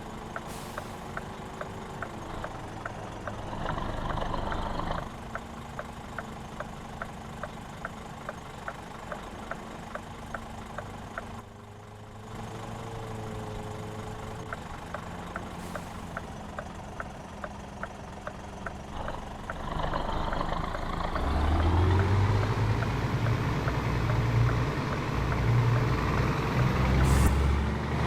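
Scania 500S truck's diesel engine on a straight-through exhaust, running steadily with a light ticking about twice a second. About two-thirds of the way through, the engine note grows much louder and deeper.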